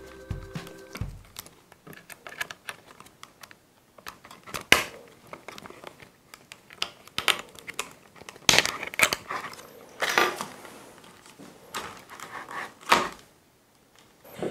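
Hands handling the plastic parts and cord of a 3D-printed desk lamp: scattered clicks, light knocks and rustling, with a few sharper clacks.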